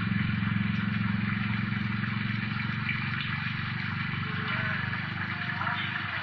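A low, steady motor hum that slowly fades, over a steady hiss.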